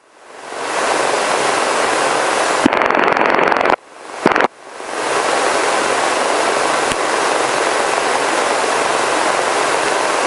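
Steady cabin noise of a Robinson R44 helicopter in flight, its engine and rotors heard from inside the cabin. The sound cuts out abruptly at the start and again about four seconds in, each time fading back up over about a second.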